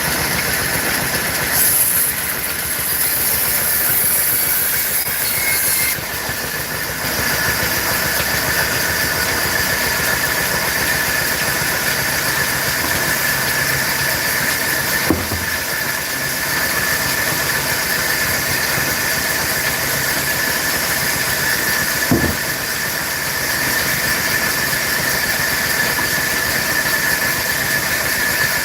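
Woodworking machine running steadily, a held high whine over loud hiss. A short sharp knock comes about halfway through and another about two-thirds of the way through.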